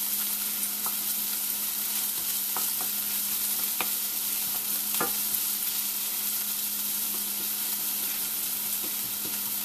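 Finely chopped onions sizzling as they fry in vegetable oil in a nonstick pan, stirred with a wooden spatula that scrapes and taps against the pan a few times. The onions are just starting to turn brown.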